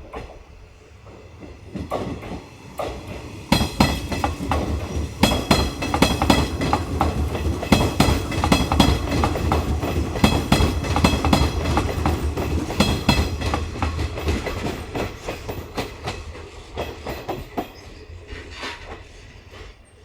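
An electric train on the Hanshin Main Line running past, its wheels clattering over the rail joints in a rapid clickety-clack over a low rumble. The sound builds about three and a half seconds in and fades away over the last few seconds.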